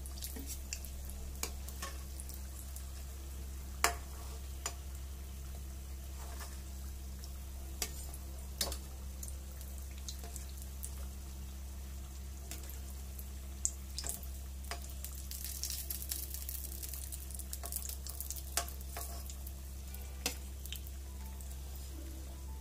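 Samosas deep-frying in hot oil as they turn golden: a steady soft sizzle with scattered crackles and pops, and a few sharper clicks, the loudest about four seconds in. The sizzle grows busier about two-thirds of the way through.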